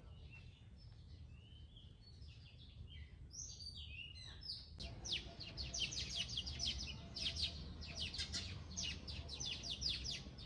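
Birds chirping: scattered short high chirps, then from about five seconds in a fast run of falling notes, several a second. A faint low hum runs underneath.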